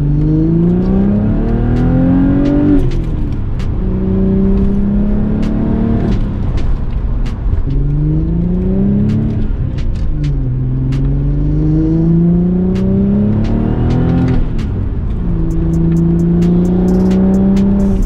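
Audi B5 S4's 2.7T V6 accelerating, heard from inside the cabin: the engine note rises, drops at each gear change, and climbs again several times. It runs cleanly, with its partial-throttle misfire cured.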